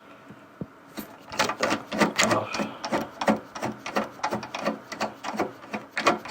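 A screwdriver backing a screw out of a cassette deck's case: a run of irregular clicks and scrapes, about three or four a second.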